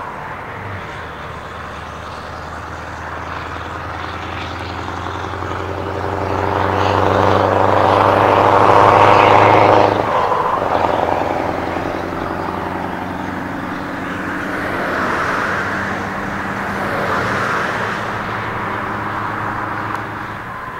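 Scania V8 truck engine pulling away under load, growing louder for the first several seconds, then dropping suddenly about ten seconds in at a gear change, and running on through further swells.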